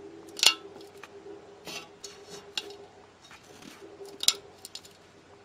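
Sharp clicks from an Advent 10-inch subwoofer as its cone is pushed, four or so spaced out over a few seconds, the first and last loudest: the sign of a cracked spider.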